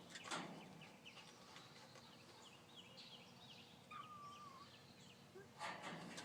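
Faint bird peeping: many short, high chirps that slide downward, with one longer wavering call about four seconds in. A brief rustling noise comes about a third of a second in and again near the end.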